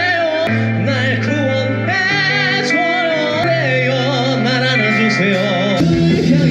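Live band music with a singer carrying a wavering melody over sustained bass notes that change every second or two.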